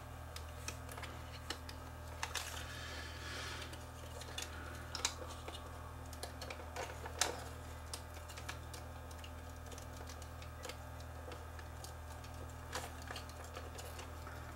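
Light clicks and brief scraping of a small camcorder viewfinder's plastic housing and circuit board being handled and fitted together, the loudest click about seven seconds in, over a steady low hum.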